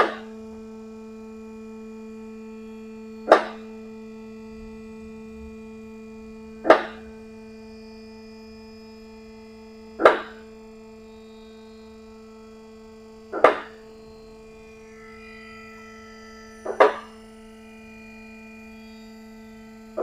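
Background music: a steady held drone note with a sharp, ringing hit about every three and a half seconds.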